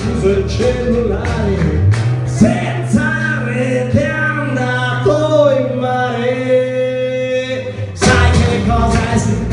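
Live song: a man singing with strummed acoustic guitar and electric bass. Through the middle he holds long sung notes over a sustained bass note, and the full band comes back louder about 8 seconds in.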